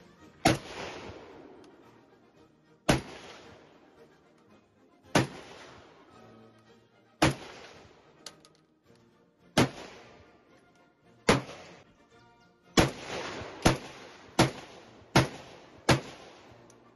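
Gewehr 43 semi-automatic rifle firing 8mm Mauser, eleven shots, each with an echoing tail: spaced about two seconds apart at first, then in a quicker string about three-quarters of a second apart near the end.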